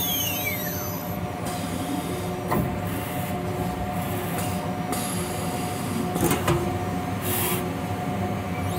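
CNC router with automatic tool changer: the spindle's high whine winds down in the first second. A steady machine hum and tone remain, with a few clicks and short hisses typical of a tool change.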